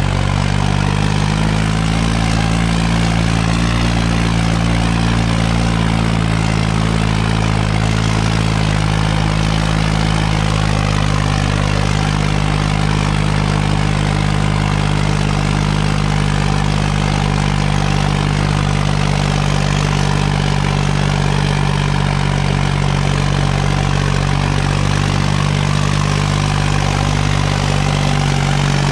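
Farmtrac tractor's diesel engine running steadily at a fairly constant speed.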